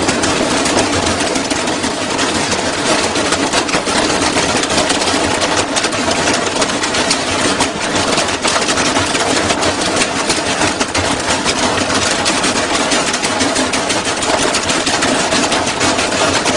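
Front-loading washing machine spinning with a badly unbalanced drum: the whole cabinet shakes and rattles with a loud, fast, continuous clatter of knocks, steady throughout.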